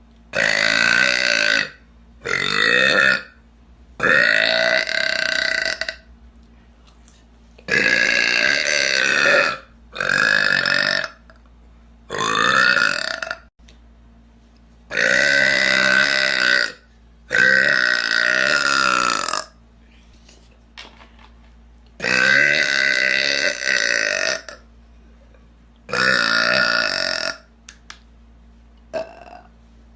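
A woman burping loudly over and over: about ten long, voiced burps of one to two seconds each, with short pauses between them, and a brief small one near the end.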